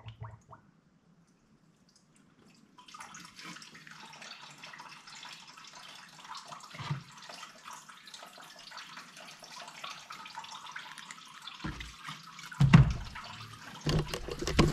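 Coolant poured from a plastic jug through a funnel into a car's coolant expansion tank: a steady pouring trickle starts about three seconds in and runs on, with a few louder knocks near the end. This is the refill stage of draining and bleeding the cooling system.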